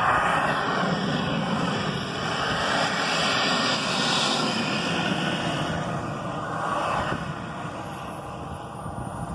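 Small turbine engine of a radio-controlled model jet running as the plane taxis: a steady rushing hiss topped by a thin high whine. The whine drops slowly in pitch and the sound fades over the second half.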